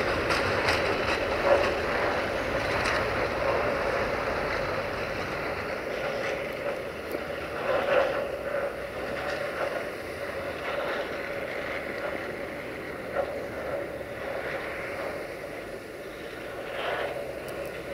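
Freight train of tank wagons rolling away on the rails: a steady rumble of wheels on track with irregular clicks and clunks, slowly fading.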